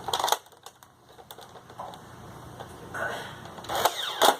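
Mechanical clicking and rattling of a Nerf Stampede blaster being worked, with a few sharp clicks at the start and a busier run of clicks in the last second or so.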